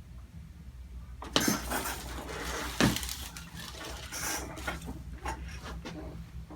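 Two sharp clicks about a second and a half apart, with rustling and handling noise between and after them.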